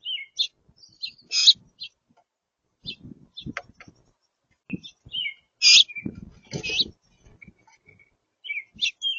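Small songbirds at a feeder giving short, high chirps and call notes in scattered bursts, the loudest in quick pairs, with a few low thuds mixed in.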